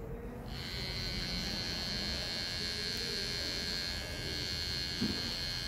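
Electric hair trimmer switches on about half a second in and runs with a steady high buzz as it trims beard hair over a comb.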